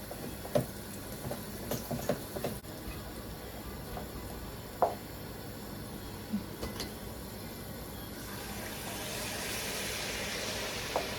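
Sel roti frying in hot oil: a steady sizzle with a few light knocks of a utensil, the sizzling growing louder and brighter for the last few seconds.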